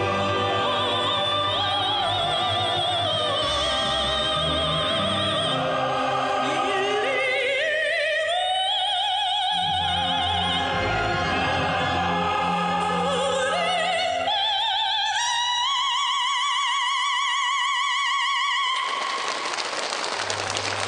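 Sung music: a voice with wide vibrato over instrumental accompaniment, rising to a long held note. A wash of noise then covers everything near the end.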